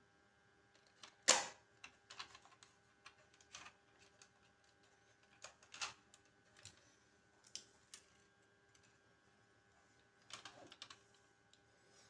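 Scattered clicks and light taps of a small plastic drone and its battery being handled. The loudest click comes about a second in, with a short cluster near the end.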